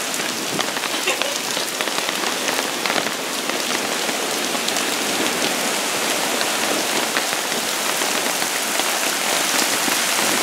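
Heavy rain falling steadily, a dense hiss full of small raindrop ticks, over the wash of heavy storm surf.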